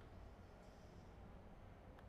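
Near silence: room tone with a low hum, and one faint, soft scratch of a marker drawing a short line on a board about half a second in.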